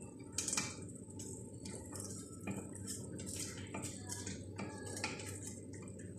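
A spoon scraping and knocking against a metal bowl as fish pieces are stirred through a spice mixture, about two strokes a second.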